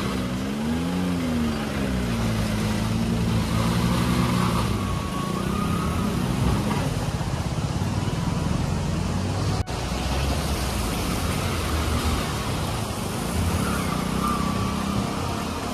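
Car and jeep engines running at low speed as the vehicles edge past each other on a narrow muddy road, revs rising and falling in the first seconds; a motorcycle passes close near the end.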